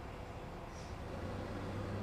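Truck engine running steadily with a low hum that grows a little louder about a second in, with a brief faint hiss just before.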